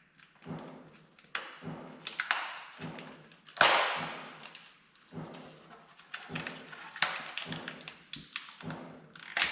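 A small product box and its packaging being opened and handled: a run of light taps and knocks, with one louder rustle of packaging about three and a half seconds in.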